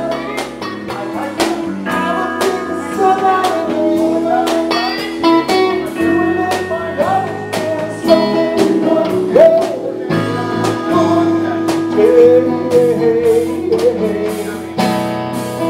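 Live band music: drum kit, bass and keyboards playing with a wavering lead melody line on top.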